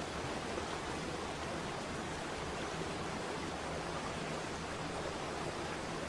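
Waterfall: a steady, even rush of falling water with no change throughout.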